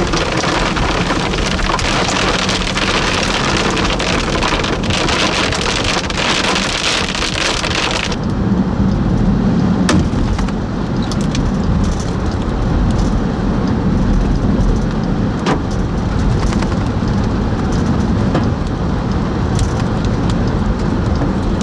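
Heavy storm rain beating on a vehicle, a dense steady hiss with scattered sharper hits. About eight seconds in the sound abruptly turns duller as the high end drops away, leaving a low hum under the drumming.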